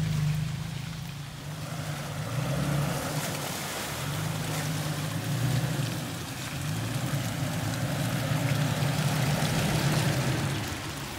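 Engine of a 4x4 off-road vehicle running at low speed on a dirt trail: a low drone that swells and eases, over a steady rushing noise.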